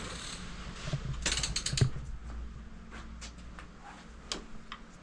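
Ratcheting clicks of a hand tool during the engine build: a quick run of clicks about a second in, then a few scattered metal clicks.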